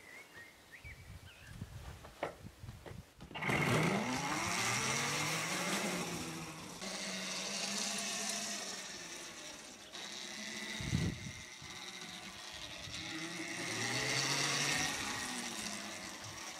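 Electric motor of a Torrot E12 children's electric dirt bike whining as it is ridden, starting about three seconds in, its pitch rising with speed, holding, dropping briefly and rising again as the bike speeds up and slows.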